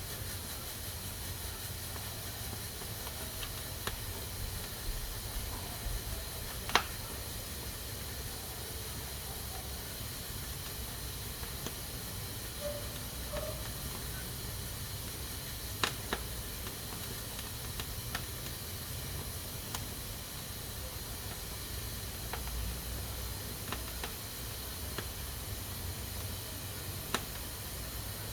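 Pressure cooker hissing steadily as steam escapes through its valve, with a few sharp clicks now and then.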